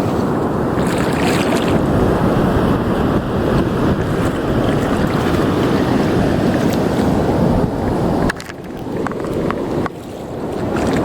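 Strong wind buffeting the microphone over the wash of shallow surf, a dense, steady noise that dips suddenly twice near the end.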